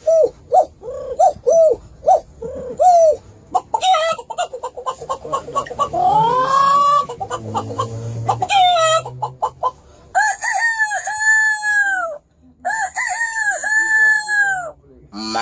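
Chickens calling: a run of short repeated clucks and cackles, then a rooster crowing twice, each crow long and arched, in the last few seconds.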